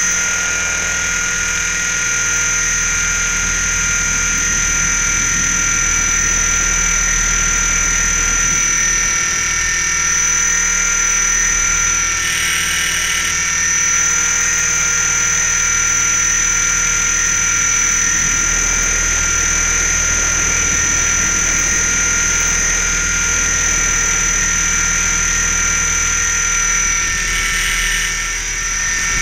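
Electric Mini Titan RC helicopter in flight, heard from a camera mounted on its frame: a steady high whine from the motor and gears with the rotor's drone underneath, easing slightly near the end.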